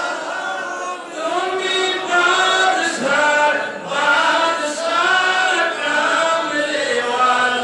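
A man chanting a melodic Islamic devotional song into a microphone, amplified over a public-address system, in long held notes that waver in pitch.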